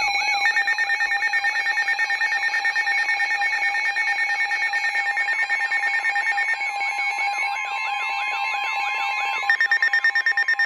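Weather alert radios sounding their alarms for an incoming Severe Thunderstorm Warning: several steady electronic tones overlap with a repeating warbling sweep and rapid pulsing. Another steady tone joins about six and a half seconds in, and fast beeping starts near the end.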